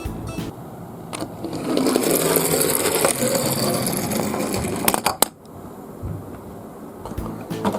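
A miniature toy garbage truck rolling down a slope, its small wheels rattling for about three seconds, followed by two sharp clacks.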